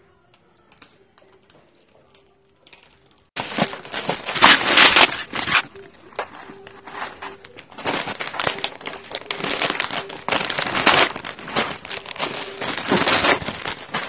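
Plastic candy bags crinkling as they are handled and opened, and wrapped fun-size candy pouring into a plastic bucket. The rustling starts suddenly about three seconds in and comes in repeated loud bursts.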